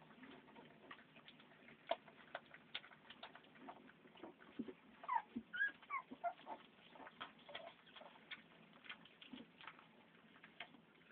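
Litter of blue Amstaff bully puppies nursing: faint, irregular soft clicks of suckling and smacking. A few short high squeaks and whimpers come about five to six seconds in.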